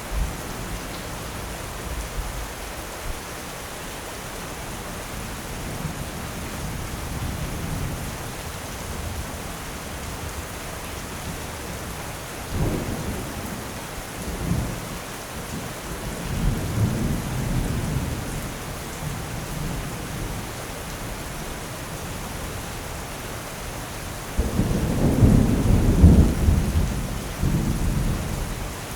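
Steady rain with rolling thunder. Short rumbles come near the middle, and the longest and loudest peal comes about three-quarters of the way through.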